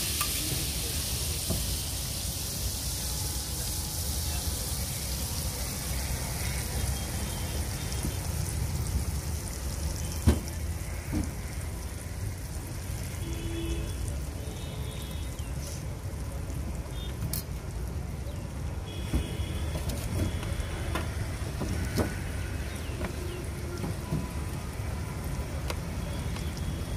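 Beaten egg sizzling on a large flat iron griddle (tawa): a hiss loudest just after the egg is poured, settling into a steady frying sizzle. A sharp click about ten seconds in.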